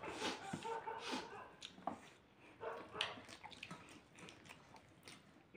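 Quiet eating at a table: fingers mixing rice and curry on steel plates, chewing, and a few small clicks and smacks. A faint drawn-out tone runs through the first second.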